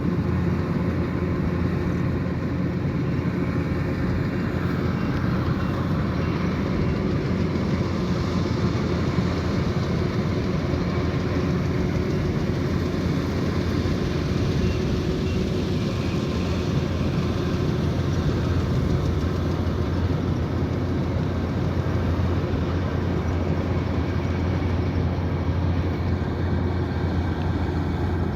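Kubota DC108X combine harvester running steadily while harvesting rice: an even drone of its diesel engine and threshing machinery, with a strong low hum.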